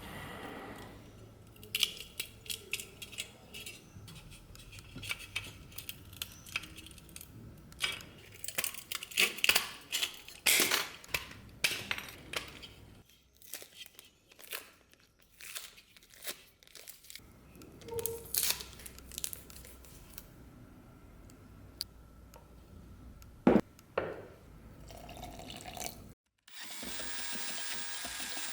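Irregular hand-work noises: clicks, taps and short scraping strokes at uneven intervals. Near the end, after a brief cut, a steady hiss takes over.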